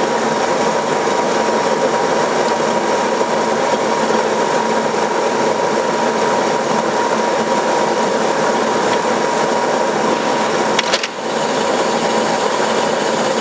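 1952 Brown & Sharpe automatic lathe running, turning out small rivets: a loud, steady mechanical clatter with a constant whine through it. About eleven seconds in there are a couple of sharp clicks and a brief drop in the noise before it carries on.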